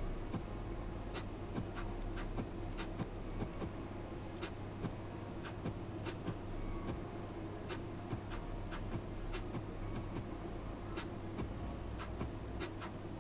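Trading cards being handled and flipped through by hand, giving light, irregular clicks and soft slides, roughly one or two a second, over a faint low hum.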